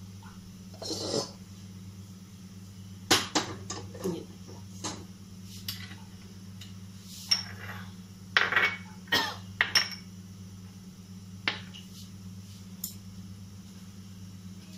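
Steel cookware and utensils knocking and clinking as a pan is handled and set on a gas stove: a dozen or so scattered sharp knocks, busiest about three seconds in and again around eight to ten seconds in, over a steady low hum.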